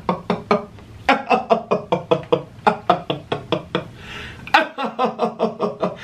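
A man laughing hard: a fast run of short "ha" pulses, a sharp breath drawn in about four seconds in, then more laughing.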